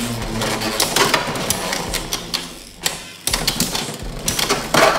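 Two Beyblade X spinning tops whirring and clashing in a plastic stadium: a rapid, dense clatter of clicks and knocks, easing briefly around three seconds in, then a loud burst of clattering near the end.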